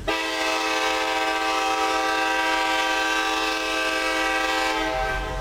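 Multi-chime air horn of a Norfolk Southern F9A diesel locomotive leading an approaching train, sounding one long blast that starts abruptly and holds steady for about five seconds.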